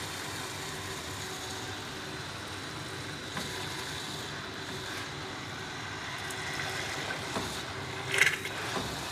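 Bamix hand blender running steadily at high speed in a tall beaker, emulsifying egg, oil, vinegar and mustard into mayonnaise. A brief louder sound comes near the end.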